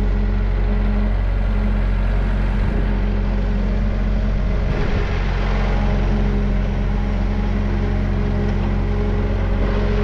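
Thomas 243 S Series skid steer's engine running steadily while the machine moves, with a short burst of extra, harsher noise about five seconds in.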